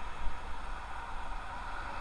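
Steady traffic and road noise with a low wind rumble, picked up by a helmet-mounted action camera's microphone while cycling; a brief low knock about a quarter second in.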